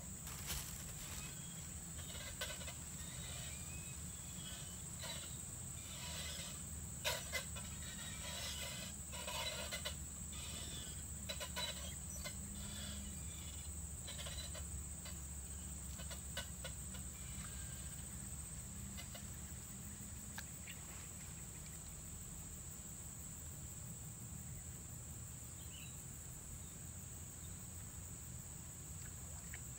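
Outdoor ambience dominated by a steady high-pitched insect drone over a low steady rumble. Scattered short clicks and rustles fall in the first ten seconds or so, then thin out.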